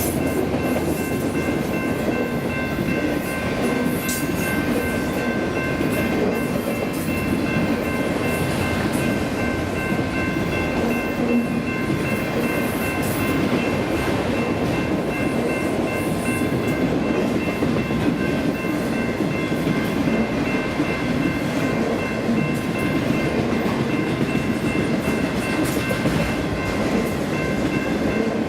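Autorack freight cars of a BNSF train rolling past on the rails: a steady rumble and rattle of wheels on track, with a faint steady high whine held above it.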